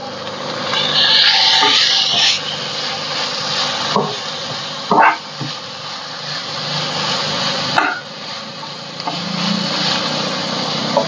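Chopped vegetables sizzling in oil in a frying pan on a gas stove, loudest in the first couple of seconds, with a few short knocks of a large spoon against the pan.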